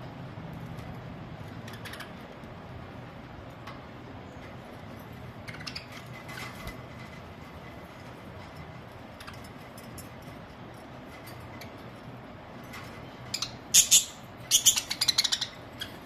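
Budgerigars chirping in a cage: a few faint chirps about six seconds in, then a burst of loud, quick chirps and squawks near the end, over a steady low hum.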